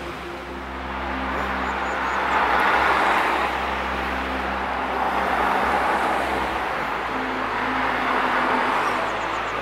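Road vehicles passing one after another: tyre and engine noise swells and fades three times, over steady background music.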